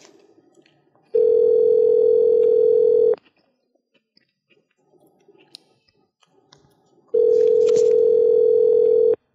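Telephone ringback tone heard over the line as an outgoing call rings unanswered. It rings twice, each ring a steady hum of about two seconds, with about four seconds between them.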